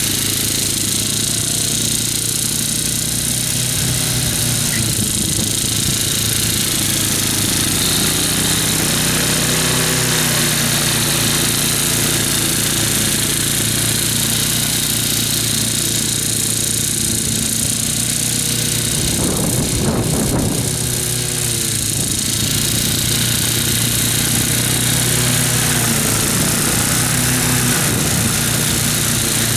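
Riding mower's engine running under load with its cutting deck engaged while it mows tall, wet grass. The engine note rises and falls in pitch, and there is a brief rush of noise about twenty seconds in.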